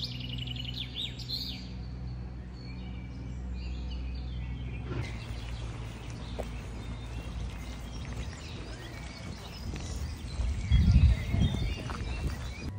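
Birds chirping over a steady low outdoor rumble, with a louder low rumble for about a second near the end.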